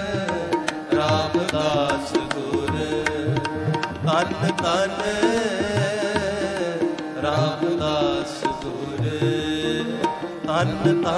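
Gurbani shabad kirtan: tabla playing under a melody with long, wavering sung notes.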